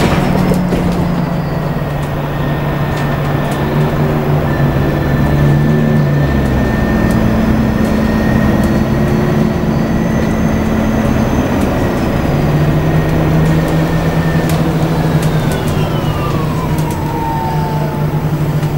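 Interior sound of an Alexander Dennis Enviro400 Hybrid diesel-electric double-decker bus on the move: a steady low engine drone and a high electric motor whine over road noise, with scattered small rattles. Near the end the whine slides down in pitch as the bus slows.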